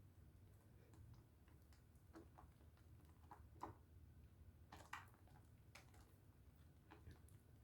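Faint, irregular soft wet clicks and squishes of pink Dove soap being lathered by hand, a few slightly louder near the middle.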